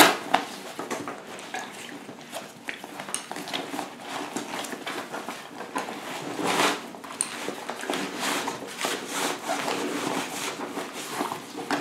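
Nylon backpack fabric and a plastic water bladder rustling and rubbing as the bladder is pushed down into the pack's rear compartment, in irregular scrapes and swishes, busiest in the second half.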